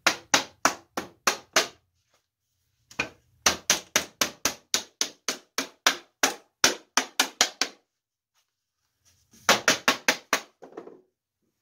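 Mallet knocking on an old wooden drawer in quick runs of sharp taps, about four a second, as its back is driven into place during reassembly. Three bursts: a short one at the start, a long one through the middle, and a short one near the end.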